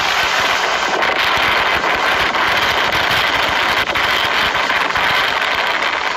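Storm-force wind blowing hard across a phone's microphone: a dense, loud rush with rapid buffeting crackle throughout.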